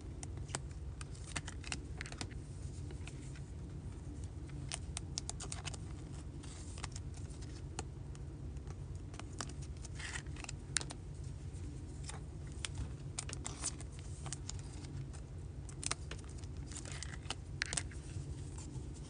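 Baseball trading cards being handled and flipped through by hand: scattered light clicks and flicks of card stock, with a few short rustles of plastic or foil wrapper, over a steady low hum.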